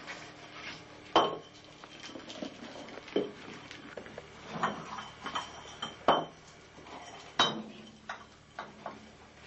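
Empty glass bottles knocking and clinking together as a hedgehog pushes its way between them: a string of sharp knocks with a short glassy ring, three of them much louder than the rest.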